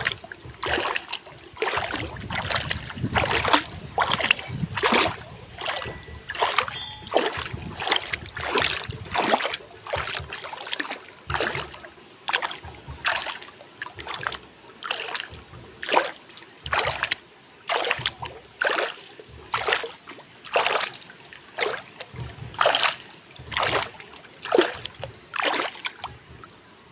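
Water lapping and splashing in short, irregular slaps, a little more than one a second, over a soft steady wash; small waves breaking against a shore or hull.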